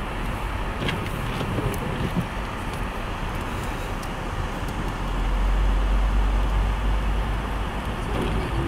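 Road and engine noise inside a moving car's cabin: a steady low rumble that grows louder about five seconds in.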